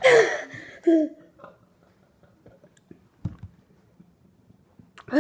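A boy's loud breathy gasp and a short groan as his mouth burns from a hot chili pepper, then quiet breathing with small clicks and a soft low bump about three seconds in, and another groan at the end.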